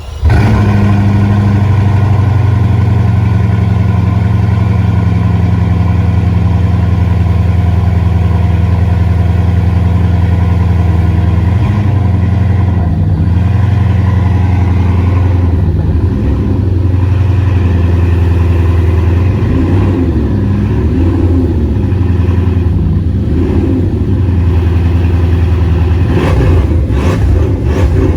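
Bugatti Chiron Pur Sport's quad-turbo W16 engine idling steadily just after start-up. From about the middle it is blipped lightly several times, each a short rise and fall in pitch.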